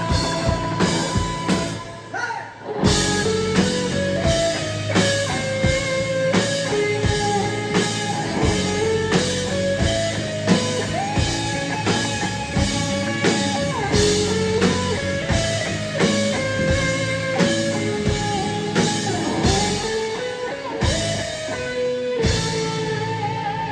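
A rock band playing live, with a drum kit, guitars and a melodic lead line. The music dips briefly about two seconds in, then the full band comes back in with a hard hit.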